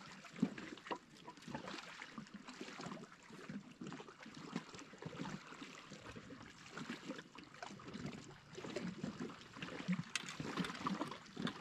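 Small waves lapping and splashing irregularly against a rocky lakeshore, with a few sharp clicks about ten seconds in.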